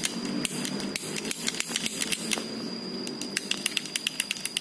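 Shimano Claris road-bike shifter (brifter) mechanism clicking sharply as its lever is worked over and over, the clicks coming faster near the end. The shifter is being tested after its jammed mechanism was cleaned out.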